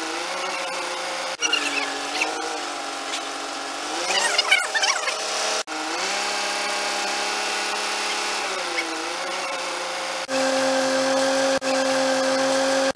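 Crane engine running under load, its pitch rising and falling as the dryer module is hoisted on cables, with a cluster of high squeaks about four seconds in. The sound breaks off sharply a few times and settles into a steadier, louder note for the last few seconds.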